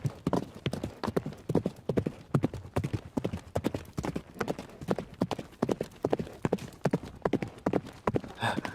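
Galloping horse hoofbeats: a steady, quick run of knocks.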